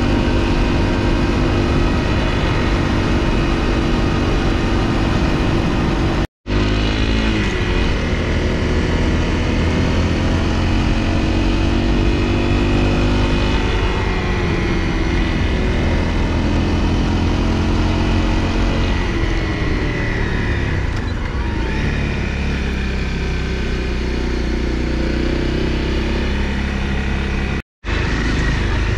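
Honda CRF250L's single-cylinder four-stroke engine running while riding, its pitch rising and falling with the throttle. The sound cuts out completely twice, briefly, about six seconds in and near the end.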